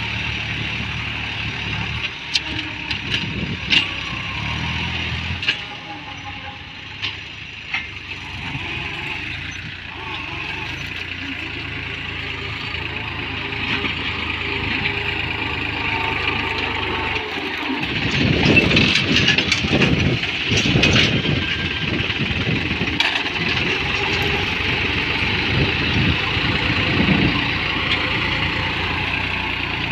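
Tractor diesel engine running steadily, with a few sharp clicks in the first several seconds, and turning louder and rougher a little past halfway.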